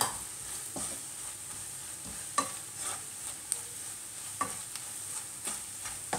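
Onions and ground spices sizzling in oil in a non-stick kadai, stirred with a wooden spatula that scrapes and knocks against the pan every second or so. The spice powders are being fried in with the onions.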